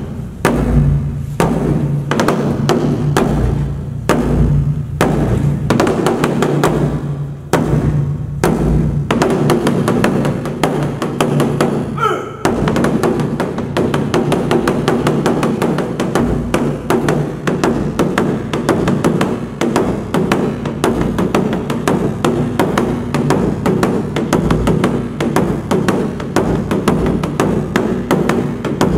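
Large Korean barrel drum, its hide head beaten with two wooden sticks, booming with a sustained low resonance. The strokes come in spaced groups at first, then about twelve seconds in quicken into a fast, almost continuous roll.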